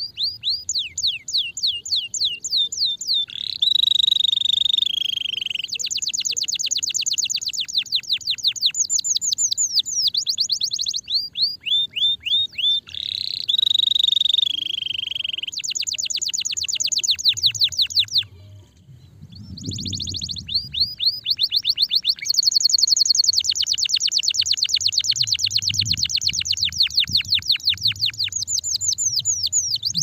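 Domestic canary singing a long, fast song of rapid trills made of quickly repeated downward-sweeping notes, with a drawn-out whistled note about 4 seconds in and again about 13 seconds in. The song breaks off briefly around 18 seconds, then resumes.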